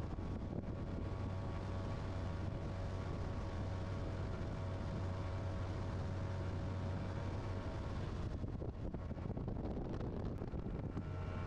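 Bass boat's outboard motor running steadily at speed, a low hum with a steady whine above it, under the rush of wind and water. The hiss thins out for a few seconds from about eight seconds in, then comes back.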